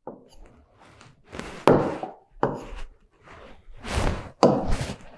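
A run of short knocks and rustling handling noises, about eight in five seconds, with one sharper click about one and a half seconds in.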